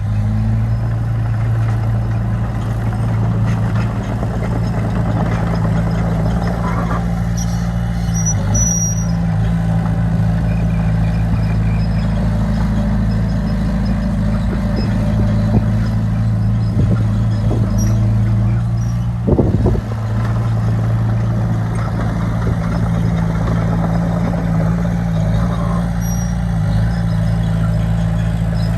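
Heavy diesel engine of earthmoving machinery running steadily under load, with a short clank about 19 seconds in.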